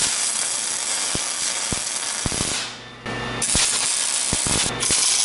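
Wire-feed (MIG) welder arc laying tack welds on steel, a steady crackling hiss. It stops for a moment just before three seconds in and starts again, slightly louder, for a second weld.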